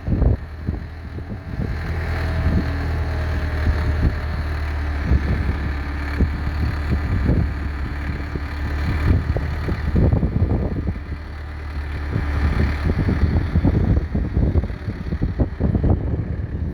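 Ford 5030's 4.2-litre four-cylinder diesel engine running steadily, pulling a two-furrow mounted plough.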